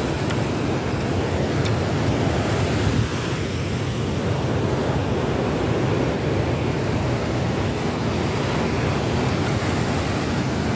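Sea surf breaking and washing against a rocky shore, a steady low rush, with wind buffeting the microphone.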